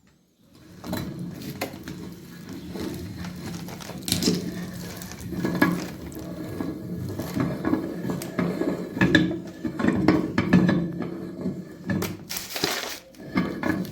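A meat grinder grinding walnuts: irregular cracking and crunching of the shells over a steady low hum. It starts about a second in.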